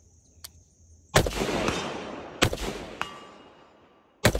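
Three shots from a 5.56 mm Recce-style AR rifle, about a second and a half apart, each with a long echo fading after it.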